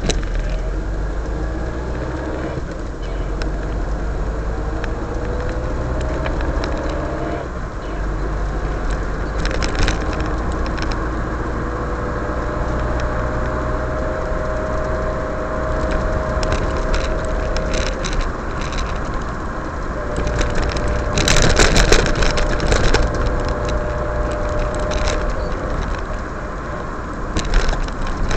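Car engine and tyre noise heard from inside the cabin while driving on wet pavement. The engine pitch rises and falls through the gears. Clusters of rattles and knocks come in over bumps, the loudest a little past two-thirds of the way in and again near the end.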